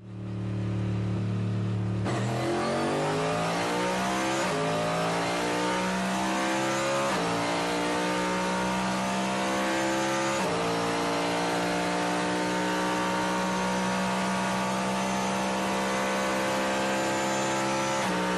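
Chevrolet NASCAR stock car's V8 engine heard from inside the cockpit. It holds a steady note, then about two seconds in pulls hard and rises in pitch through the gears, with three upshifts a few seconds apart. It then holds a high, nearly steady note at speed on the straight, and the note shifts briefly near the end.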